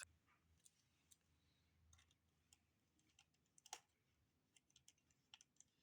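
Near silence broken by faint, scattered small clicks and taps, with one sharper tap a little before four seconds in.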